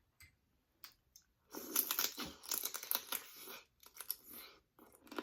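Crackling, tearing sounds of cooked shellfish being pulled apart and peeled by hand. The sounds come in a dense run starting about a second and a half in, then break into scattered crackles and clicks.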